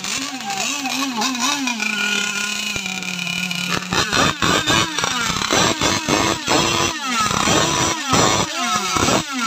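Small two-stroke petrol engines of radio-controlled racing powerboats running. A wavering drone settles to a steady pitch, then from about four seconds in the engine is revved in quick, repeated throttle blips.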